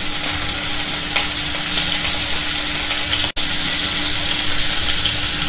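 Grated ginger and ginger-garlic paste sizzling in hot oil, a steady frying hiss, with one brief dropout a little past three seconds in.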